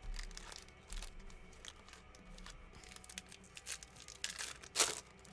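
Mosaic basketball card packs being torn open and their wrappers crinkled, a string of short crackles with one louder rip about five seconds in.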